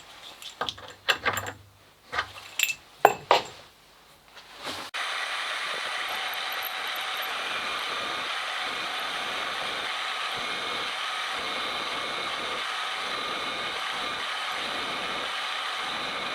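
A few clicks and knocks of tool handling, then about five seconds in the milling machine's spindle starts running steadily as the drill cuts the first hole in the holder part.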